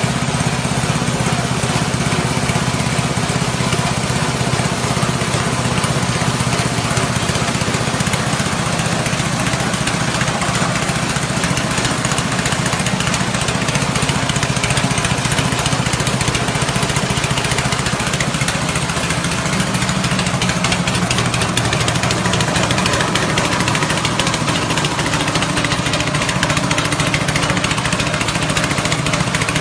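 A rice-husk grinding machine driven by a 6.5 HP petrol engine, running steadily: the engine's drone under the dense whirring and rattling of the grinder.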